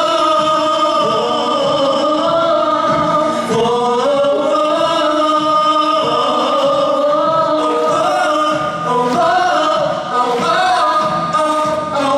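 Several singers holding long wordless sung notes over a musical accompaniment with a steady beat, as in the break between chorus and verse of a pop-musical number.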